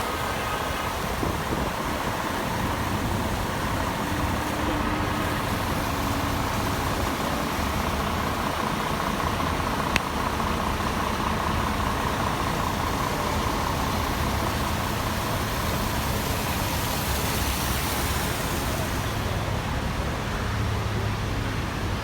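Steady engine and traffic noise of motor vehicles on a city street, with a faint steady whine and a single sharp click about halfway through.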